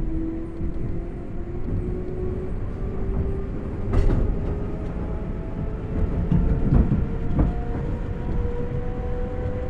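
Keihan 2200 series electric train heard from inside the car while running. The traction motor whine rises steadily in pitch as the train gathers speed, over a constant rumble of wheels on rail, with a few sharp knocks from the track.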